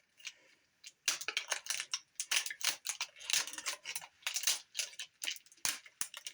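Dense, irregular crinkling and crackling of thin plastic being torn and crumpled by hand, starting about a second in: the shrink-wrap sleeve coming off a bottle of iced coffee.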